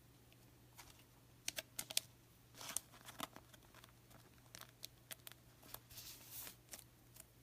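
Baseball cards and their packaging being handled: a scatter of sharp clicks and brief rustles of cards and plastic, over a low steady hum.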